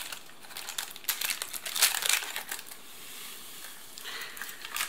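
Foil drink-powder sachet crinkling and crackling as it is handled and opened, loudest about two seconds in, then a softer steady hiss near the end as the powder is poured into a glass of water.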